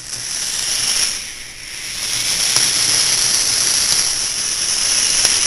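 Small electric gear motors of a homemade wheeled robot running, a steady high whirring hiss that dips briefly about a second and a half in.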